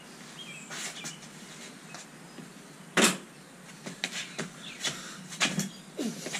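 Handling noise as a man shifts in and gets up from a plastic patio chair: scattered knocks and rustles, the loudest a sharp knock about three seconds in, with a quicker run of clicks and knocks near the end.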